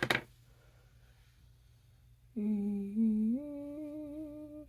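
A woman humming a short tune: three held notes, each a little higher than the last, starting about halfway through and lasting about two seconds. A couple of brief clicks come right at the start.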